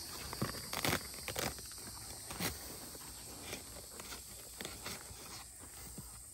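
Scattered knocks, crackles and footsteps as a tangled clump of bamboo roots is rolled over on the ground, with insects chirring steadily behind.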